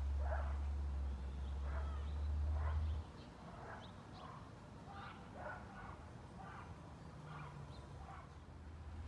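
A dog barking over and over in short calls, under a loud, steady low rumble that cuts off suddenly about three seconds in.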